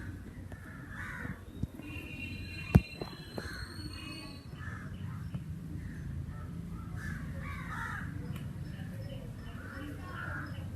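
Crows cawing again and again over a steady low background rumble, with one sharp click about three seconds in.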